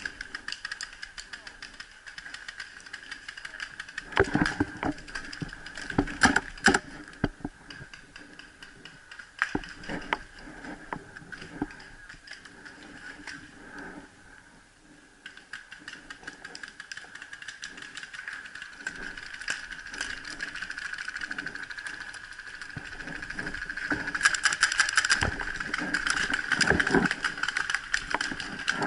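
Paintball markers firing: sharp pops in scattered clusters, then a dense run of rapid shots near the end.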